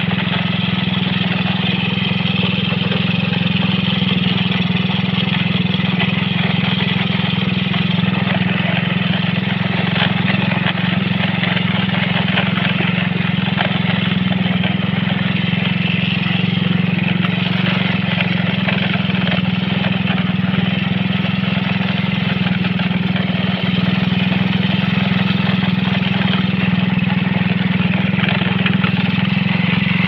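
Motorcycle engine running steadily while the bike is ridden, with a constant low hum and an even rushing noise over it.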